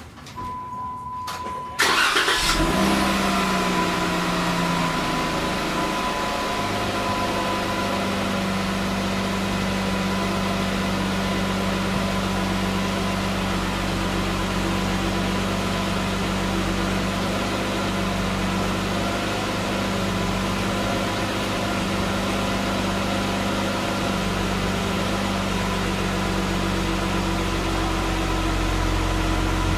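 A 2014 Jeep Wrangler's 3.6-litre V6 starting up about two seconds in, at a high fast idle at first, then settling to a lower, steady idle through its exhaust. A thin steady high tone starts just before the engine catches.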